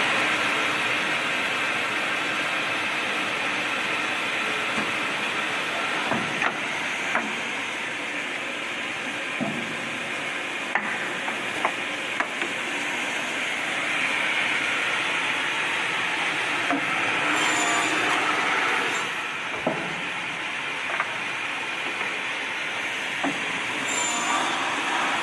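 CNC cross-cutting saw running through an automatic cutting cycle: steady machine noise with scattered sharp knocks and clicks, and two short bursts of hissing, one about two thirds of the way in and one near the end.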